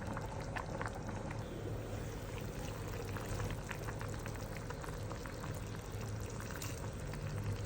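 Liquid bubbling in a cooking pot: a steady bubbling with many small scattered pops over a low hum.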